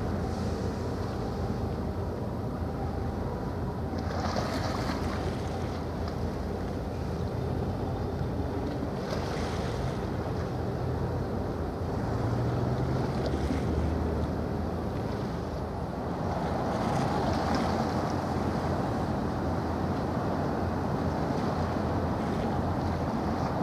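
Low, steady drone of a passing ship's engines, mixed with wind buffeting the microphone and the wash of water. The wind rises in brief gusts a few times.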